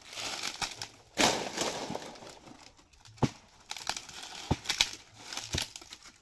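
Dry palm fronds and leaf sheaths crackling and rustling as they are pulled apart by hand, with a loud rustle about a second in and several sharp snaps later on.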